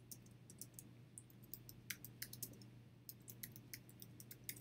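Computer keyboard typing: a quick, uneven run of faint key clicks as a word is typed.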